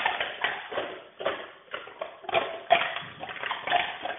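Drink cans clattering and rustling in a recycling bin as a dog noses and digs through them, in a string of irregular short bursts.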